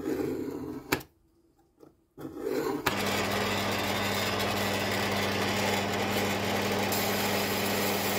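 A scriber scratches a line across a steel plate, ending in a click; then, about two seconds in, a small horizontal metal-cutting bandsaw starts and runs steadily with a motor hum, its blade cutting through 3 mm steel plate.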